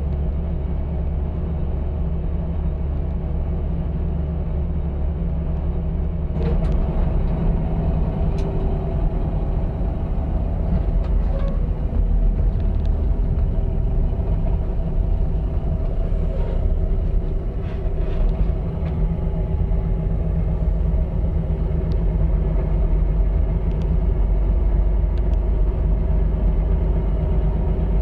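Steady low rumble of engine and road noise inside a truck's cab driving at highway speed.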